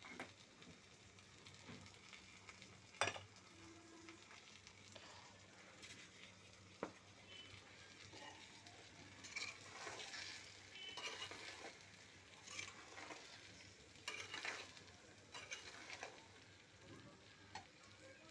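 Whole red chillies and garlic cloves frying in oil in a pan with a faint sizzle, stirred by a metal spatula that gives scattered scrapes and clicks against the pan, the sharpest about three seconds in.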